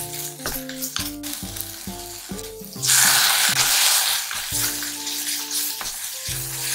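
Carrots and green peppers sizzling as they are stir-fried in a cast-iron pot, a wooden spatula knocking and scraping the pot. About three seconds in the sizzle jumps to a loud hiss for a second and a half as liquid seasoning hits the hot pot, then settles back.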